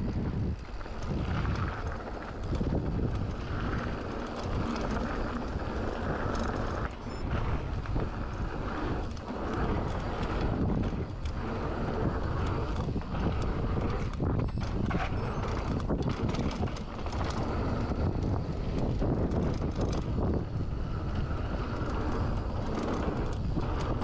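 Mountain bike riding over a bumpy dirt trail: steady tyre noise on loose dirt with frequent rattles and knocks from the bike over the bumps, and wind buffeting the chest-mounted action camera's microphone.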